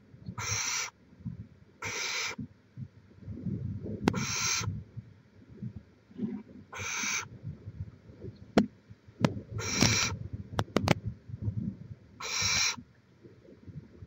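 Barn owl nestlings giving rasping begging hisses, each about half a second long, six times at roughly two-second intervals. A few sharp clicks and low rustling in between.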